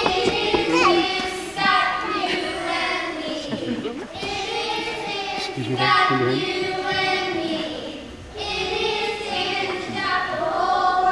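A group of young children singing together, in sung phrases broken by short pauses about four and eight seconds in.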